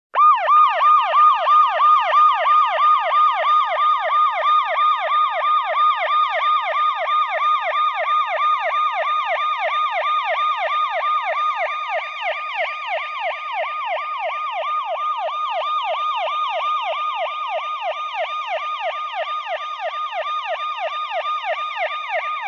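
Fire engine siren sounding a fast yelp, its pitch sweeping up and down about three to four times a second. It starts abruptly and cuts off suddenly.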